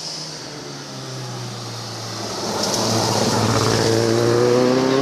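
Classic rally car's engine approaching and growing steadily louder, its pitch dipping in the middle and then climbing over the last second as it accelerates.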